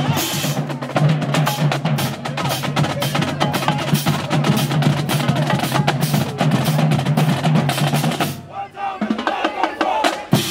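Marching-band drumline playing a fast, dense cadence on snare drums with bass drums, over a steady low held note. The drumming breaks off briefly about eight and a half seconds in, with crowd voices heard in the gap, then starts again.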